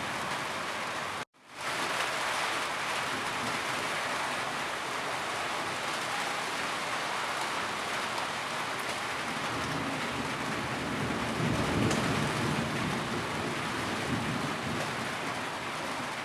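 Steady rainfall, an even hiss. It cuts out for a moment about a second in and fades straight back. A low rumble swells briefly a little past the middle.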